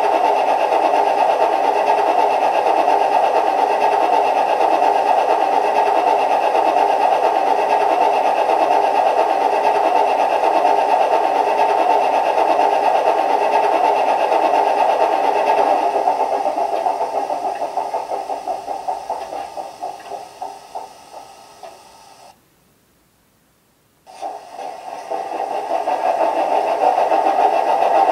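Sampled Class 27 diesel engine sound (Sulzer six-cylinder) played by a model locomotive's DCC sound decoder through its small speaker. The engine runs steadily, then runs down with slowing beats and stops. After a second or two of near silence it fires up again about 24 seconds in and builds back to a steady run.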